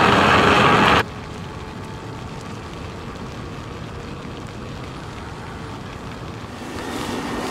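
Steady rushing noise of an e-bike ride: wind and tyre noise. It is loud at first, drops suddenly to a softer rush about a second in, and grows louder again near the end.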